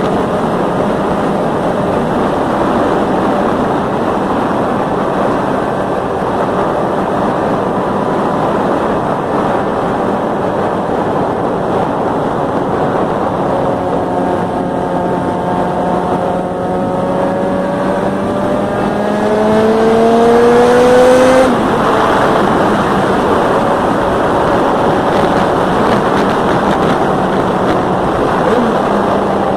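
Yamaha XJ6N motorcycle's 600 cc inline-four engine running at a steady pitch, then revving up in a long rising climb through the middle of the stretch, getting louder, before dropping suddenly back to its earlier steady note.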